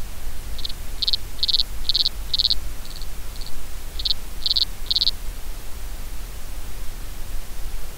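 Male lesser water boatman (Micronecta scholtzi) stridulating underwater: a run of about ten short, high chirps at roughly two a second, two fainter ones midway, stopping after about five seconds. A steady low hiss and rumble lies under it.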